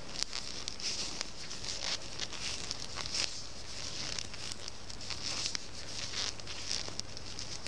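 Circular knitting needles clicking and wool yarn rustling as stitches are worked by hand, purling along the row; the ticks come irregularly, several a second, with soft rustling in between.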